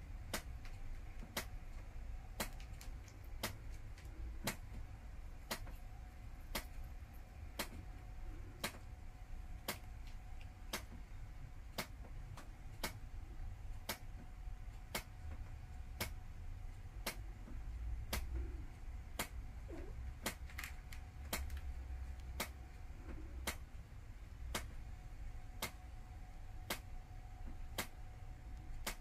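Clock ticking steadily, about once a second, over a faint steady hum and low rumble.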